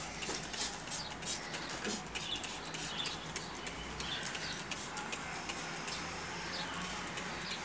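Trigger spray bottle spritzing a liquid mixture onto a plant's leaves: a run of short squirts, thickest in the first couple of seconds and sparser after.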